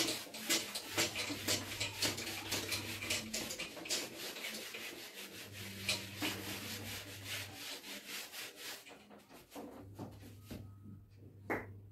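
Whiteboard eraser wiping across a whiteboard in quick back-and-forth rubbing strokes, several a second, which stop about nine seconds in. A single knock near the end.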